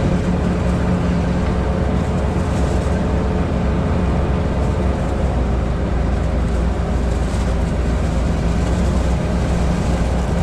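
Sherp amphibious all-terrain vehicle's Kubota four-cylinder diesel engine running steadily under way at constant speed, with a steady rushing noise underneath as it drives across lake ice.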